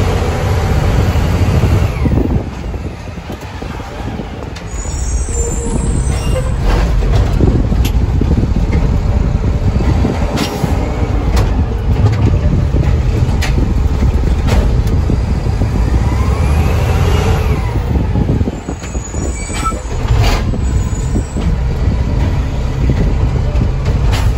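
Front-loading garbage truck driving, heard from inside its cab: a steady low engine rumble that eases off briefly about two seconds in, a whine that rises and falls as it picks up speed and slows about two thirds of the way through, and short sharp hisses and clicks that fit its air brakes.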